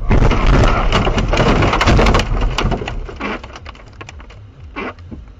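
Car ploughing off the road into snowy woods: a loud rush of snow, branches and brush striking the body for about two seconds, then dying away into scattered ticks and scrapes.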